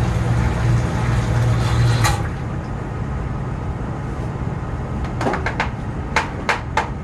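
Sump pump motor running with a steady low hum, then shutting off with a click about two seconds in. Near the end come about five sharp knocks.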